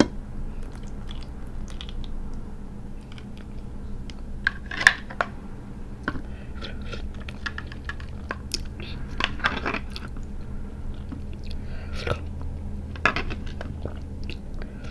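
Metal spoon scraping and clicking inside a cooked crab's top shell as the insides are scooped out, with scattered crackling scrapes, the loudest about five seconds in and again around nine to ten seconds.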